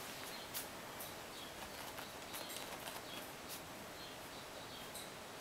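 Chihuahua puppy playing with a toy: faint, short high squeaks come every second or so, mixed with a few light clicks.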